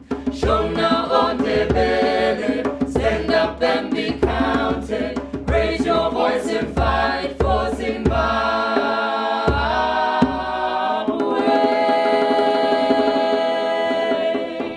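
Southern African choral singing in Shona and Ndebele, several voices in harmony over sharp percussive beats. The beats drop away and the choir holds a long sustained chord near the end.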